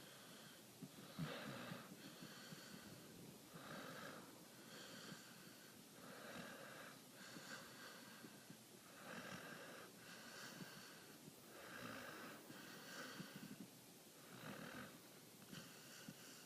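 A sleeping pit bull snoring softly and rhythmically, with six slow breaths about every two and a half to three seconds. Each breath is a snore on the way in, followed by a second one on the way out.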